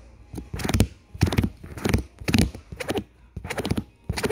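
A series of sharp, uneven taps very close to the microphone, roughly two a second, made as a homemade ASMR sound.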